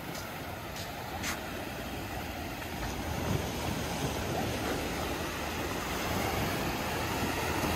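Steady wash of sea surf with wind rumbling on the microphone, slowly growing louder.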